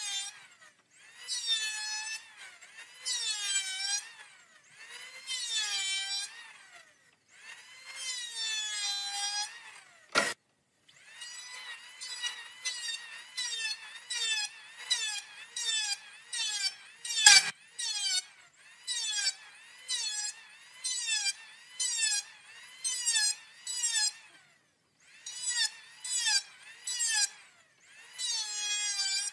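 Handheld electric planer shaving the edge of a wooden board in repeated passes, each a burst of about a second whose whine dips in pitch as the blades bite into the wood and rises again. The passes get shorter and quicker in the second half, and there are two sharp knocks, the louder one a little past the middle.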